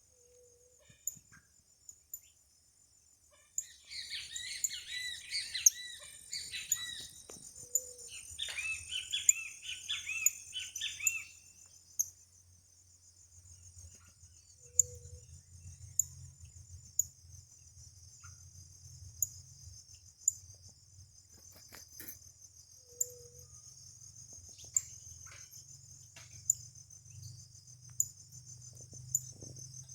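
A yellow canary twittering in two short bursts of song near the start, over a steady high insect trill with regular ticks.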